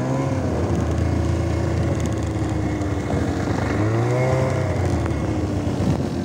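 Snowmobile engine running steadily, its pitch rising as it speeds up a little before four seconds in.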